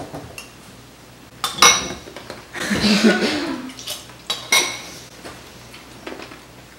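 Metal spoons clinking and scraping against a ceramic bowl of crushed ice. A few sharp clinks with a short ring come about a second and a half in and again after four seconds.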